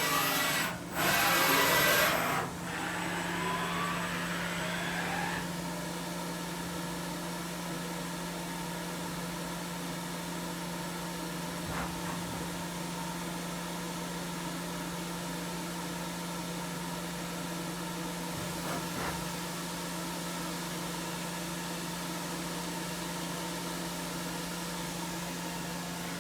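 Samsung MCV-50 vertical machining center running a backlash and repeatability test program: loud axis traverse moves in the first couple of seconds with a short break about a second in, then a servo whine sweeping in pitch. After that the machine settles into a steady hum with a constant tone and two faint ticks.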